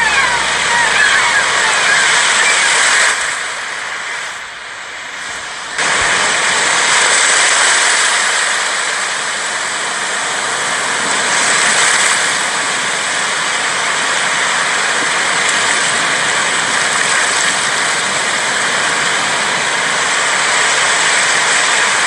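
Sea waves washing ashore: a steady rushing hiss that swells and eases. It dips about three seconds in and comes back suddenly near six seconds.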